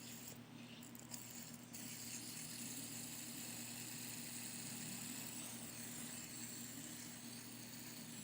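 Quiet room tone: a steady low electrical hum and hiss, with one faint click about a second in.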